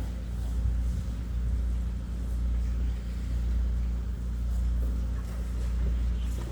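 Machinery running with a steady low drone and hum, without a break.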